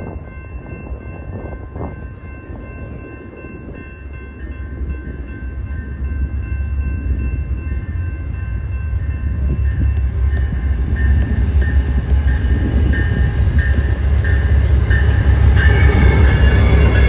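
Amtrak GE P42DC Genesis diesel locomotives approaching at speed at the head of a passenger train, their deep engine rumble growing steadily louder as they near. A bell rings repeatedly in the last several seconds.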